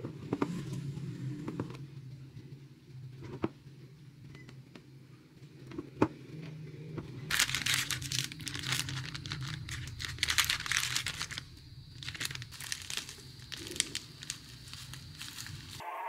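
A few light taps and one sharp click over a low steady hum. Then, from about seven seconds in, the crackling and crinkling of a plastic-wrapped Lotus Biscoff biscuit packet handled and squeezed by hand.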